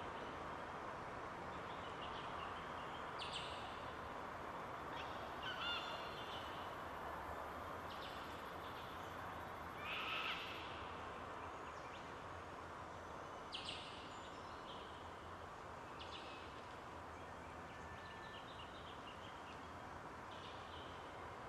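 Yellow-tailed black-cockatoos calling: several separate calls, a few seconds apart, over a steady background hiss.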